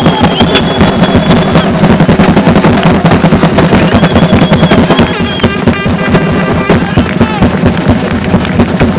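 Loud music with a fast, dense beat, and a high held note near the start and again about four seconds in.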